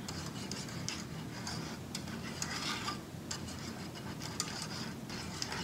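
Metal whisk stirring and scraping around an enamel saucepan of hot soya milk thickened with cornflour, in quick, uneven rubbing strokes.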